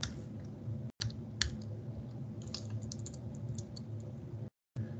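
Computer keyboard keys being typed, a few scattered clicks and then a quicker run of keystrokes, over a low steady hum. The sound drops out briefly about a second in and again near the end.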